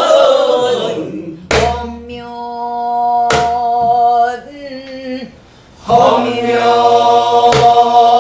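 A woman singing long held pansori notes, struck through by three strokes on a buk barrel drum: about a second and a half in, about two seconds later, and near the end. The singing breaks off briefly just past the middle.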